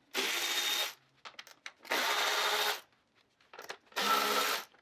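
Handheld cordless power driver backing out the front fender's 5 mm Allen-head mounting bolts: three short runs of the motor, each under a second, with light clicks of handling between them.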